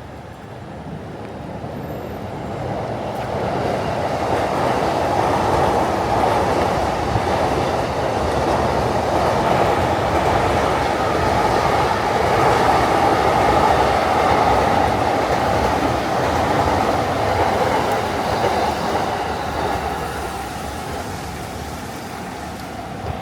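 A commuter train passing close by on the tracks: wheel-on-rail noise builds over the first few seconds, stays loud for about ten seconds, then fades away toward the end.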